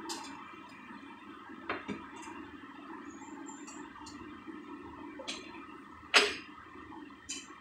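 Plastic Petri dishes and lids being handled: a series of light clicks and knocks, about six in all, with the sharpest knock a little past six seconds in, over a steady mechanical hum.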